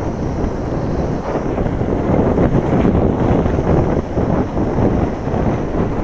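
Wind buffeting the microphone of a camera on a moving mountain bike: a loud, steady rumble that swells and eases a little.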